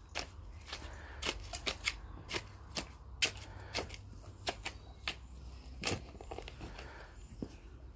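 Irregular sharp clicks and snaps, two or three a second, over a steady low rumble.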